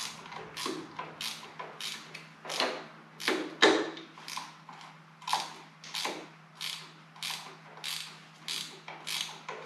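Hand ratchet wrench being swung back and forth in short strokes, its pawl clicking about one and a half times a second as it backs a nut off a long stud. There is one louder metallic clank near the middle, over a faint steady hum.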